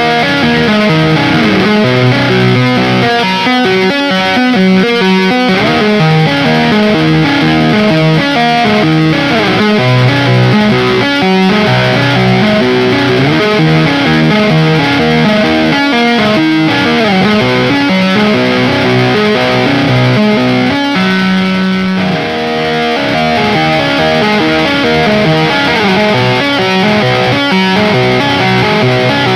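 Electric guitar with Ibanez STD C1/C2 passive humbucking pickups played through a distorted amp tone, a run of picked notes and chords with some sliding pitches.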